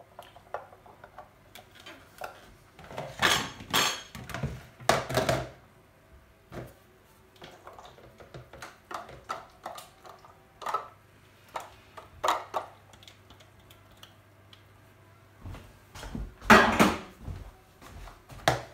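Plastic food processor bowl being handled, knocked and scraped out with a spatula into a mesh sieve: scattered clatters and knocks, loudest about three to five seconds in and again near the end.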